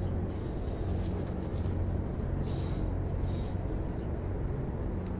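Steady low mechanical hum, with a few brief rustles of tomato leaves and stems as the plant is handled.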